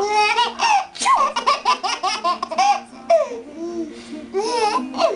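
An eight-month-old baby laughing in quick, high-pitched bursts, easing off briefly past the middle before laughing again.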